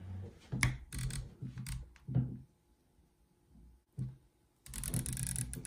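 Permanent marker pen scratching on gaffer tape wrapped round a rifle scope's elevation turret, with light knocks from handling the scope in the first two seconds and a denser burst of scratching near the end.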